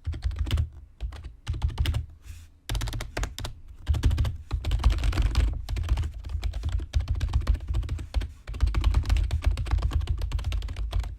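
Rapid typing on a Corsair K55 RGB membrane (non-mechanical) keyboard, miked right next to the keys: a dense clatter of key presses with a brief pause about two seconds in.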